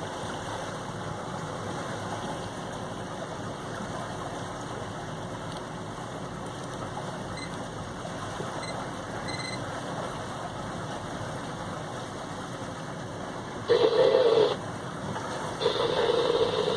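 Steady wash of noise from a motor yacht under way: engine hum mixed with water rushing along the hull. Near the end it is broken by two louder bursts of about a second each.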